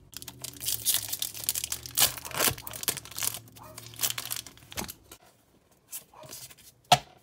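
Foil Pokémon TCG booster pack wrapper being torn open and crinkled, a dense crackling for the first five seconds or so. Then sparser rustles as the cards are handled, with a sharp snap near the end.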